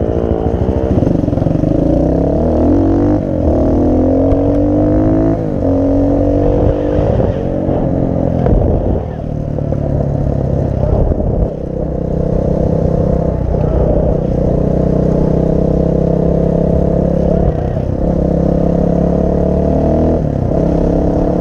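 Junak 901 motorcycle engine under way, pulling through the gears: its pitch climbs and drops back at each upshift in the first few seconds, then it runs at a steady cruising speed.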